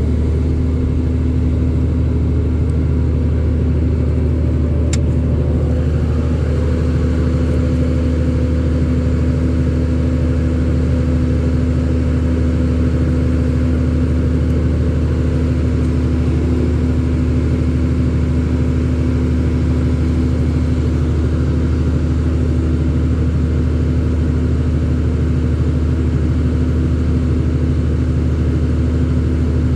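An engine running steadily at a constant speed, with a low drone that does not change. There is one sharp click about five seconds in.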